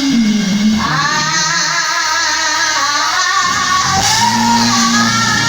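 Gospel singing with long, drawn-out held notes over an instrumental accompaniment that sustains low notes.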